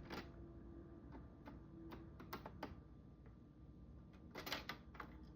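Faint scattered clicks and taps as a screwdriver works out the last screw holding a Roomba's plastic housing. The clicks come in small clusters, loudest a little after four seconds in.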